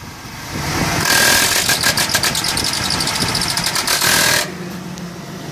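A 2003 Chevy Tahoe's engine bay. A loud, fast-pulsing noise starts about a second in and cuts off suddenly three and a half seconds later, leaving the engine idling with a low, steady hum. It is the unexplained noise that goes with the AC belt tensioner shaking hard, even with a new tensioner fitted.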